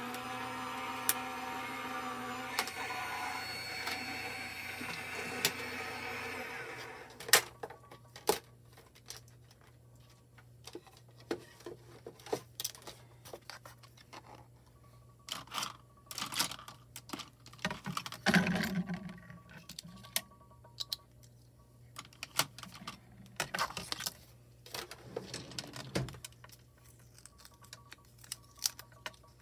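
A small motorised craft machine runs with a steady whine, then stops about seven seconds in. Scattered light clicks and taps of paper and hand tools follow.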